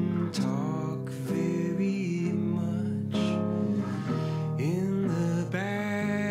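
Baritone electric guitar played as an instrumental passage: picked melody notes, several bending or sliding in pitch, ringing over sustained low notes.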